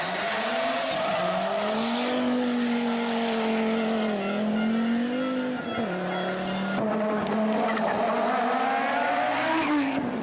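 Audi Quattro Group B rally car's turbocharged five-cylinder engine running hard at high revs, its pitch drifting up and down, with a brief dip about six seconds in. The sound changes abruptly about seven seconds in.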